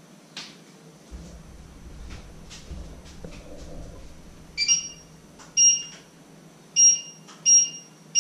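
Short electronic appliance beeps, five of them at uneven intervals about a second apart, starting about halfway through, as from buttons being pressed on kitchen appliance controls. A few soft knocks come before them.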